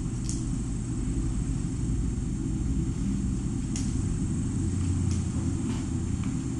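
Steady low rumble of room background noise, with a few faint, soft ticks over it.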